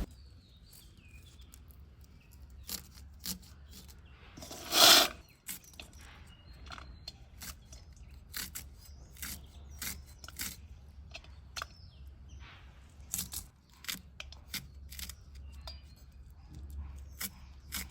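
Banana-blossom florets being shredded on a boti, the curved Bengali floor blade: irregular short crisp crunches as each bunch is pushed through the blade, with one longer, louder rustle about five seconds in.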